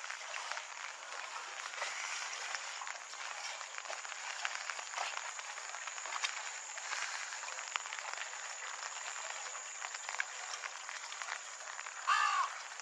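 Steady rain pattering, a fine hiss full of small drop ticks. A single bird call sounds out briefly near the end, the loudest thing here.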